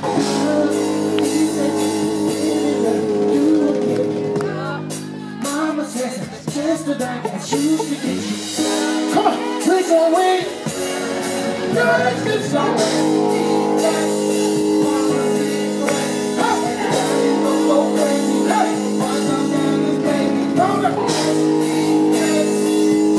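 Live R&B band playing, with bass guitar and held chords under a singing voice. About four seconds in the band thins out and the voice carries on nearly alone, and the full band comes back in about twelve seconds in.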